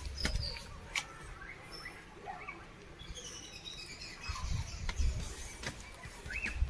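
Small birds chirping in short, scattered high calls, with a few sharp clicks and bursts of low rumble.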